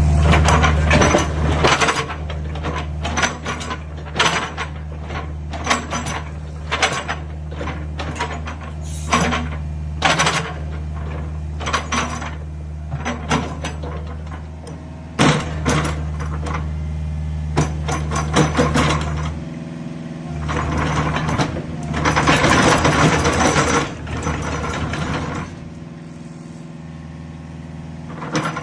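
Mini excavator's diesel engine running steadily, with repeated metallic clanks and knocks over it and a few seconds of hissing about three-quarters of the way through.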